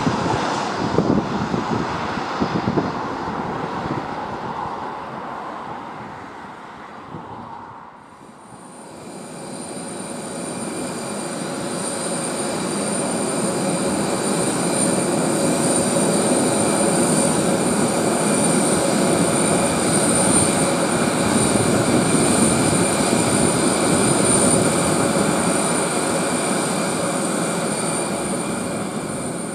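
Qantas Boeing 737-800's jet engines passing on landing, fading out over about eight seconds. Then, after an abrupt change, a steady jet-engine whine with several high, unwavering tones over a rumble builds up and holds, easing a little near the end.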